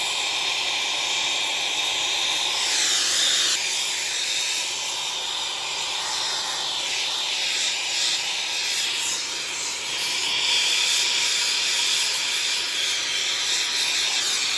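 Gas soldering torch burning with a steady hiss as it heats a 3-inch copper pipe joint; the tone shifts slightly a few times.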